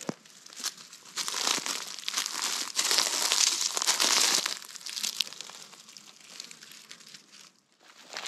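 Dry leaf litter crunching and rustling, a dense crackle that is loudest from about a second in to about four and a half seconds, then fainter.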